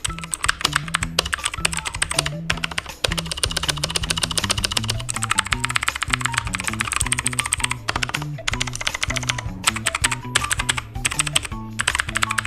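Fast typing on a 60% mechanical keyboard with clicky blue switches: a dense, continuous patter of sharp key clicks with a few brief pauses, over background music with a bass line.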